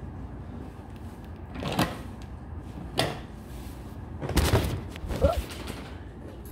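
Knocks and clatter of a goat's hooves shifting on the hollow plastic top of a pet carrier: a few separate thumps, with a quick cluster about four and a half seconds in, over steady background noise.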